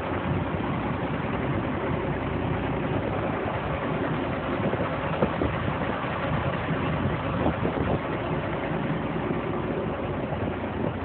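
Diesel engine of a Peterbilt 387 semi truck idling steadily.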